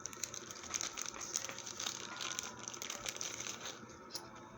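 Packaging being handled: a continuous rustling and crinkling with many small irregular clicks as the jewelry is unwrapped.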